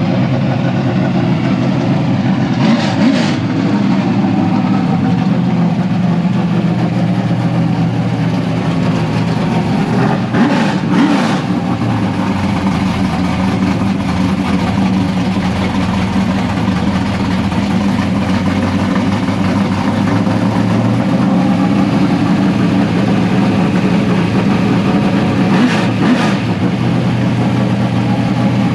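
A classic car's engine running loud and steady at idle, with a few short blips of the throttle; plenty of noise.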